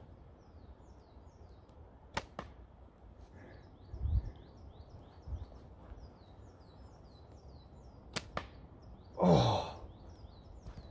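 Slingshot firing darts: a sharp snap about two seconds in and another about eight seconds in, with a couple of dull thumps between them. Near the end comes a short exclamation that drops in pitch, the loudest sound here, while small birds sing throughout.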